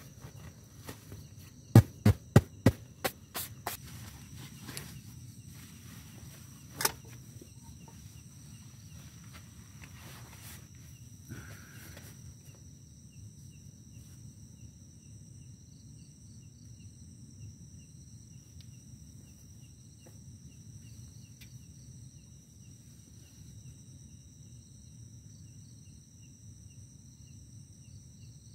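Insects calling in a steady high drone, with a faint regular ticking under it. Near the start a quick run of about seven sharp knocks, each weaker than the last, is the loudest thing, and one more sharp knock follows a few seconds later.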